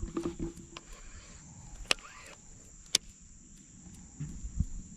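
Insects droning steadily at a high pitch, with two sharp clicks about a second apart in the middle.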